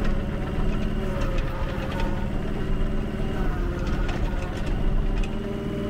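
Yanmar B1U mini excavator's diesel engine running steadily while it is worked, its note rising and falling slightly as the hydraulics take load, with occasional light clicks and clanks from the machine.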